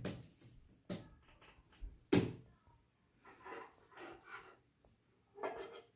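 A toddler's hands slapping and pressing a soft blob of homemade slime on a tabletop, with two sharp slaps about one and two seconds in. Soft little vocal sounds from the child follow.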